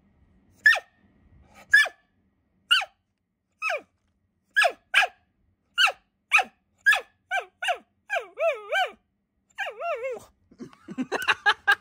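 A dog whining and yelping: a run of short, high cries that each drop sharply in pitch, about one a second and then quicker, with a few longer wavering whines and a flurry of shorter, lower yelps near the end.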